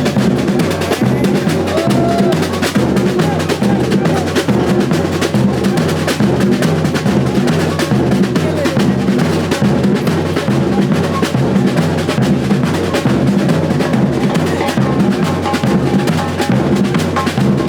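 Music driven by loud, busy drumming, with snare rolls and bass drum beating a fast, steady rhythm throughout.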